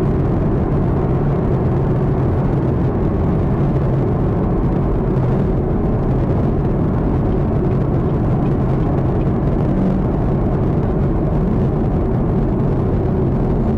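Steady low rumble of a Chevrolet Camaro ZL1 on the move, its engine and road noise blended and unchanging throughout.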